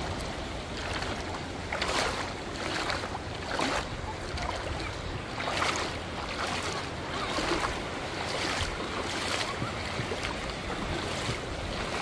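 Footsteps sloshing through shallow seawater while wading across a tidal channel, a splash every second or so, over a steady wash of wind and surf.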